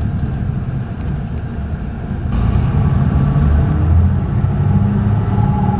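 A vehicle running with a steady low rumble that gets louder a little over two seconds in.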